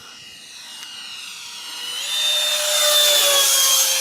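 Electric ducted-fan RC jet whining as it flies past, growing steadily louder; about two seconds in its pitch jumps up and it is loudest just after, then the pitch sinks slightly.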